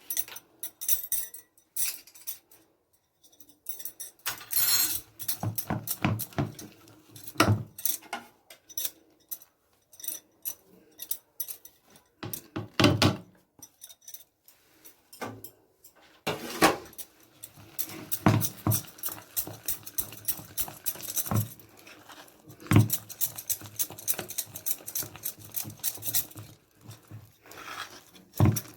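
Kitchen utensil clatter: irregular clinks, taps and knocks of metal dishes and spoons being handled, with a few heavier thuds.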